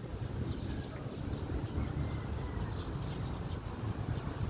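Outdoor ambience: a steady low rumble, with faint scattered high chirps of birds.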